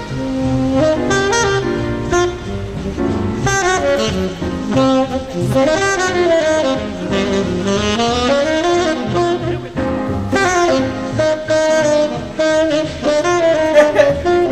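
Jazzy trailer music led by saxophone and brass, with a melody that bends up and down over a steady low beat; it cuts off suddenly at the end.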